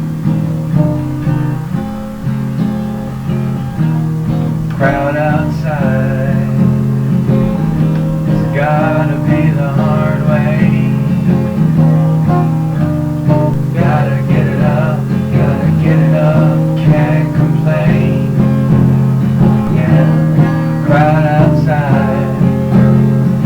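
Song intro led by strummed acoustic guitar over a steady low backing, with a higher wavering melody line joining about five seconds in.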